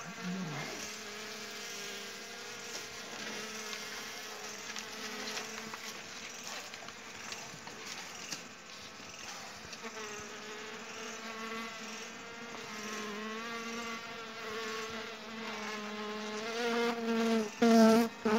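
Honey bees humming around an opened hive as their comb is cut out by hand. The colony is disturbed. The buzz wavers in pitch and swells louder near the end.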